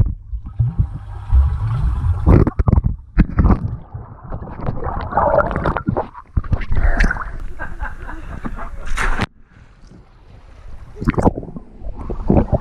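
Pool water sloshing and splashing against a camera held at the water surface, with a heavy low rumble of water buffeting the microphone and sharp splashes. The noise drops away for a second or two about nine seconds in, then the splashing picks up again.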